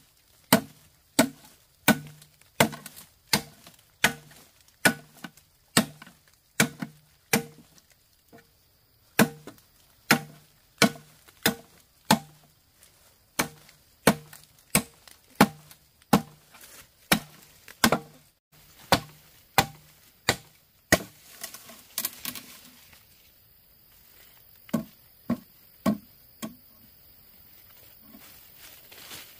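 A blade chopping on wood in steady strokes, about three every two seconds. The strokes stop about 21 seconds in, leaving a few scattered chops over a faint steady hiss.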